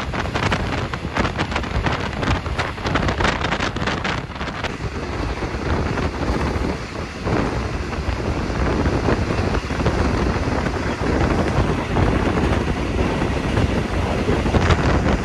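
Wind rushing over the microphone inside a moving passenger train, with the train's running rumble underneath. The wind buffets hard in the first four seconds or so, then settles into a steadier rush.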